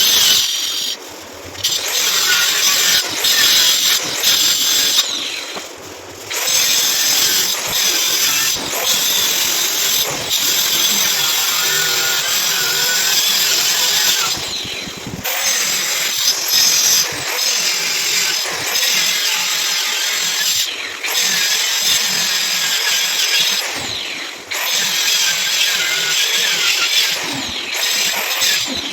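Electric hand power tool running under load in several long bursts, with short pauses between them.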